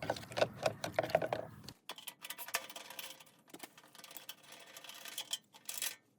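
Irregular clicks and knocks of tools and parts being handled during repair work. A low background hum drops out a little under two seconds in.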